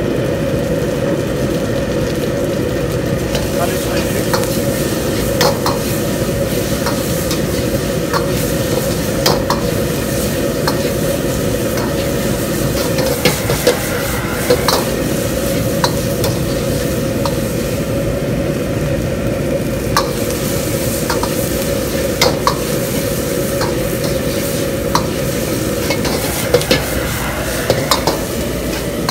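Chopped peppers, onion and garlic sizzling as they are stir-fried in hot oil in a stainless-steel wok over a gas wok burner, with a steady rush of noise throughout. A metal ladle scrapes and clinks against the wok now and then, as irregular sharp clicks that stand out above the sizzle.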